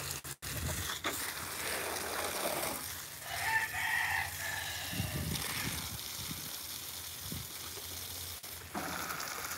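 A rooster crows once, for about a second, starting a little over three seconds in. Under it runs the steady hiss of water spraying from a garden hose onto potted plants.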